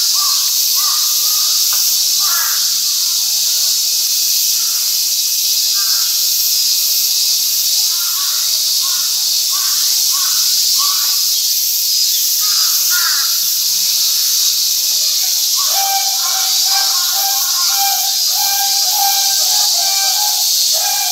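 Loud, steady high-pitched drone of summer cicadas, with short harsh calls rising and falling in the mid-range at intervals, and a steadier, lower buzzing song joining in about sixteen seconds in.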